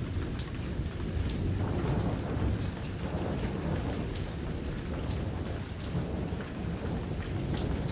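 Rain falling in a thunderstorm, with a continuous low rumble of thunder underneath and irregular sharp ticks of drops landing close by.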